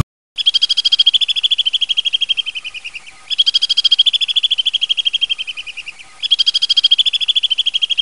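Alpine swift calling: three long, rapid chittering trills of about three seconds each. Each starts abruptly and fades toward its end.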